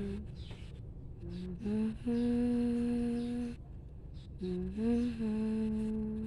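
A woman humming a slow lullaby in long held notes, in two phrases: one starting about a second in, the other about halfway through.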